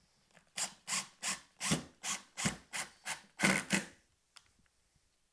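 Wood screw being driven into a pre-drilled, countersunk pilot hole in hemlock, turning in about ten short, even strokes, roughly three a second, that stop about four seconds in as the screw seats.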